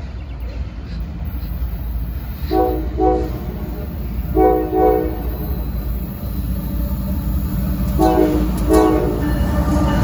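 CSX diesel freight locomotive's multi-chime air horn sounding three pairs of short blasts, then a longer blast starting near the end, over the low rumble of the approaching locomotives, which grows louder.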